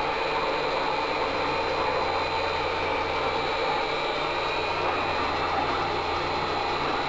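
Steady whir and hum of a CNC control panel's cooling fans and servo drive electronics, with a thin high whine over a low electrical hum.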